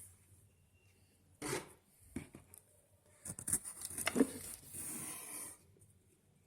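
Packaging being handled during an unboxing: rubbing and rustling, a short burst about a second and a half in, then a longer spell of scraping with a few clicks that stops near the end.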